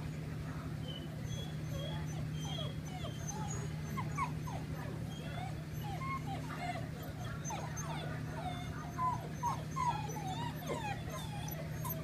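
Several seven-week-old Greater Swiss Mountain Dog puppies whining and whimpering in many short, high squeals that rise and fall in pitch, coming more thickly in the second half. A steady low hum runs underneath.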